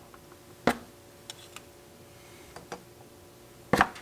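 Hard chicken eggshells clicking against one another as eggs are set into a palm beside other eggs. There are two sharp clicks, the louder one near the end, with a few light taps between.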